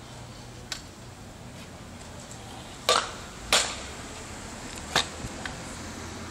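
Stunt scooter's wheels and deck knocking on a concrete curb and pavement: two sharp clacks about three seconds in, half a second apart, and a third near five seconds, with a few faint clicks between.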